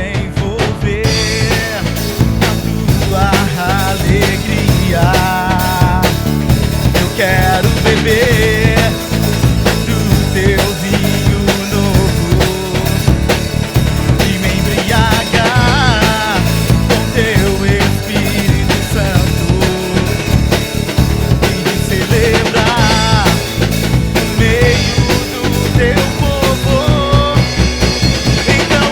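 A band plays an upbeat song on drum kit and acoustic guitar, with a sung melody over it. The drums keep a steady, busy beat.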